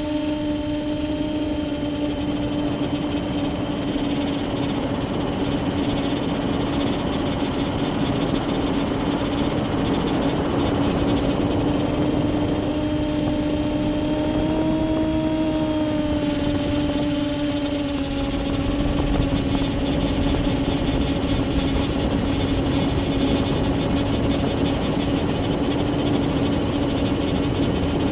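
Multirotor drone's electric motors and propellers running steadily: a strong humming tone with a thin high whine above it, drifting slightly in pitch about halfway through. The owner suspects the ESCs or motor bearings of making strange sounds and bad vibrations.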